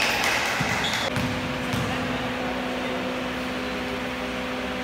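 Basketball gym ambience: a steady hum in a large hall, with a few faint thuds from the court.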